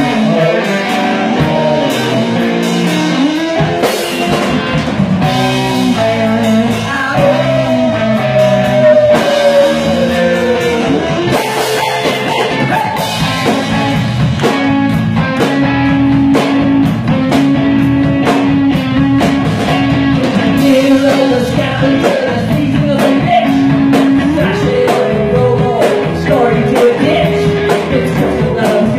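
Live rock band playing: electric guitars and a drum kit, with a male lead singer's voice over them.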